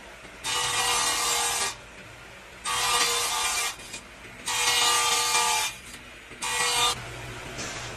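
Circular table saw ripping thin wooden boards: four cuts, each about a second long and the last one short, with the blade running more quietly between them.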